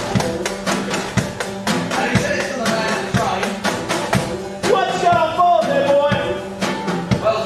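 Acoustic skiffle band playing: washboard and drum keep a fast steady beat under double bass, twelve-string guitar, banjo and fiddle. Voices sing over it, louder about five seconds in.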